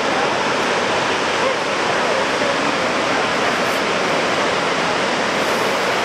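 Niagara's Horseshoe Falls: a loud, steady rush of falling water and spray, even and unbroken.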